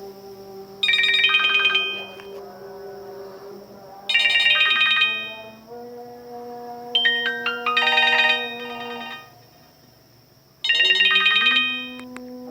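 Nokia 105 (2013) polyphonic ringtone playing: a bright, chime-like chord struck four times, about every three seconds, each fading away, over held low notes.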